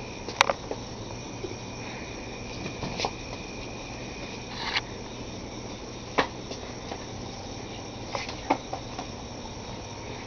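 Crickets trilling steadily in the night, one high tone holding on, with scattered light knocks and footfalls on a tiled floor.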